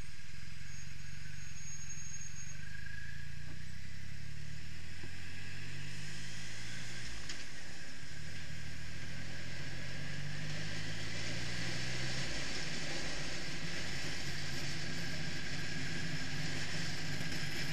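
Triumph Rocket III's 2.3-litre three-cylinder engine pulling away from a stop: the engine note climbs, drops at a gear change about seven seconds in, climbs again and settles into a steady cruise. Wind noise over the bike grows as speed builds.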